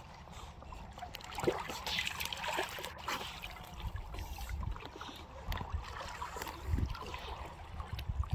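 Water sloshing and splashing at the surface close to the microphone as young fur seals swim around it, with uneven low rumbling swells and a few small clicks.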